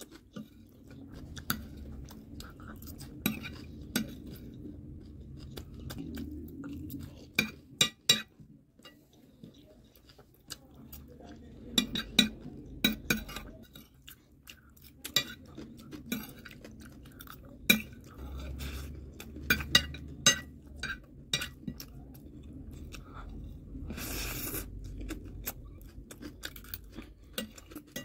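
A metal spoon clinking and scraping on a ceramic plate in scattered sharp clicks as the last of the chatpate is scooped up, between close-miked chewing of mouthfuls of it.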